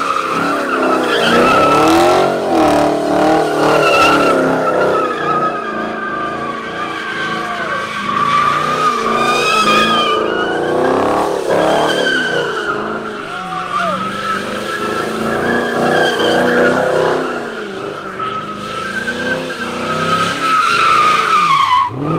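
Chevrolet Camaro doing donuts: the tyres squeal without a break, wavering in pitch, while the engine revs rise and fall as the driver works the throttle.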